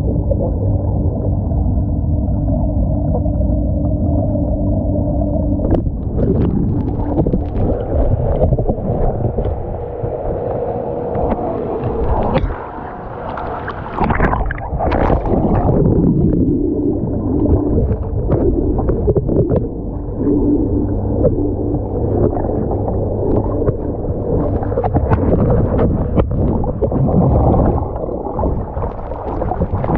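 Muffled underwater sound in a swimming pool: a steady low hum at first, then from about six seconds in, rushing and bubbling water as a swimmer moves close to the submerged camera and blows bubbles out underwater.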